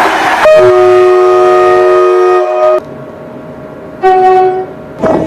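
Train horn sounding a long blast of a little over two seconds, several notes at once, that cuts off sharply, followed about a second later by a short blast.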